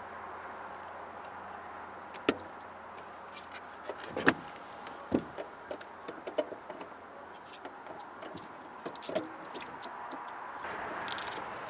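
Scattered sharp plastic clicks and knocks from handling and connecting an LED third brake light and its wiring plug, the loudest about four seconds in, over a steady faint hiss.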